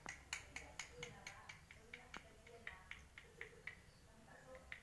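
Quick run of sharp, faint clicks, about four a second, thinning out near the end, made while zebra dove chicks are being hand-fed.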